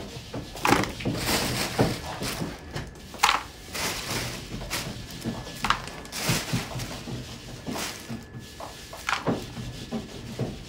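Irregular thumps and knocks of kitchen work, about one a second, the sharpest near the start.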